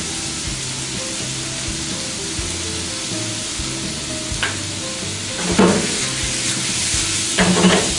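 Venison and chopped vegetables sizzling in oil in a stainless frying pan over a gas flame, a steady hiss. In the second half the pan is tossed, with loud knocks and rattles of food and pan, twice.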